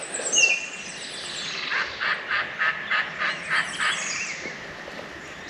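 A bird calling: a short falling high note near the start, then a rhythmic series of about eight calls, roughly four a second, lasting about two seconds.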